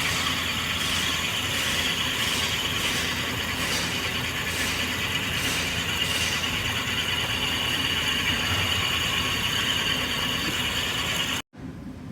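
Car engine running with an abnormal mechanical ticking that repeats about every two-thirds of a second over a steady hiss. It cuts off abruptly near the end, leaving a much quieter background.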